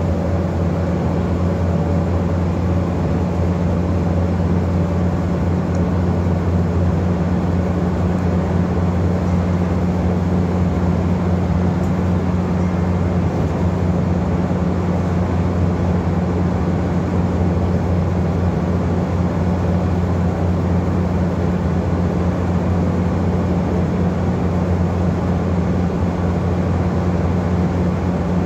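Scania N230UD double-decker bus's diesel engine droning steadily, heard inside the upper deck along with a haze of road and body noise.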